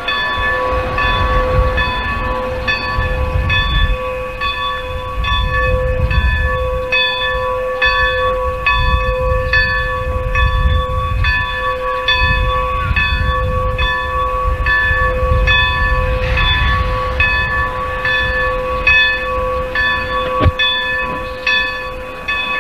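A locomotive bell ringing steadily, struck at an even pace about every two-thirds of a second, over the low rumble of a train. A single sharp knock sounds near the end.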